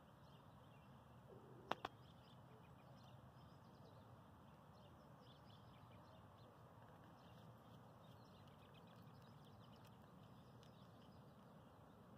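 Near silence: faint outdoor ambience, with a single sharp click about two seconds in.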